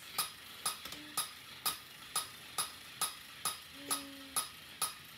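Steady mechanical ticking, sharp clicks about two a second, with a brief low hum about a second in and a longer one near four seconds.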